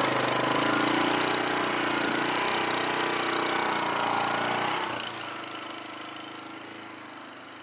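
Off-road vehicle engine running at low speed, its pitch wavering slightly, then fading away over the last couple of seconds.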